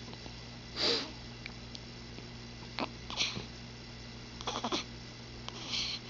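A pet hiccuping: three short, breathy hics about two and a half seconds apart, the first the loudest, with a few small clicks between the second and third.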